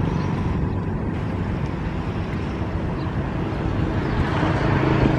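A small engine running steadily with an even, low hum.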